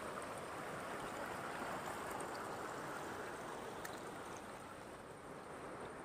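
Shallow stream water running and rippling over rock shelves, a steady gentle rush that eases slightly near the end.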